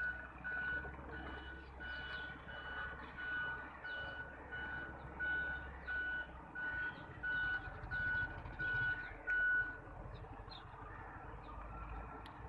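Steady electronic beeping: one even tone repeating about one and a half times a second, stopping about ten seconds in.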